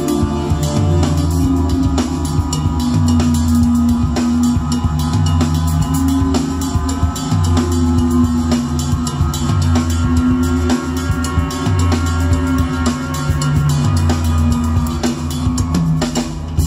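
Rock music with drum kit, bass and guitar, played from a CD through a Marantz PM500 DC amplifier and Bose Freestyle speakers in a listening test of the amplifier.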